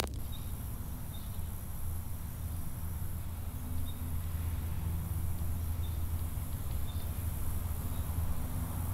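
Woodland ambience: a steady low rumble under a constant high insect drone, with a handful of short, faint chirps scattered through it.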